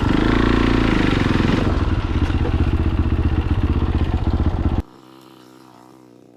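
Fantic Caballero 500's single-cylinder engine running loud and steady under way, with an even rapid pulse. About five seconds in the sound drops sharply to a much quieter engine note.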